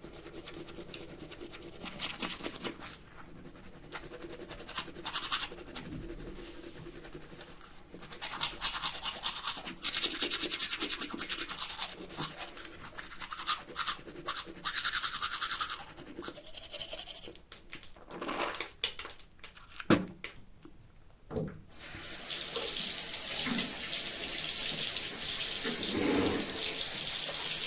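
A man brushing his teeth with a toothbrush: irregular scrubbing strokes of bristles on teeth, stopping briefly with a click about twenty seconds in. Then a steady hiss starts, like a sink tap left running.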